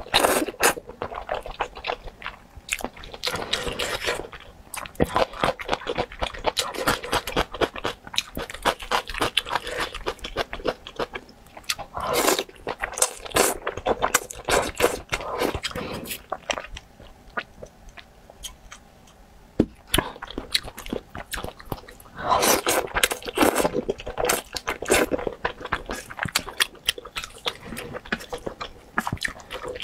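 Close-up slurping and chewing of thick, saucy stir-fried rice noodles: wet mouth clicks and smacks in bursts, with a quieter lull a little past halfway.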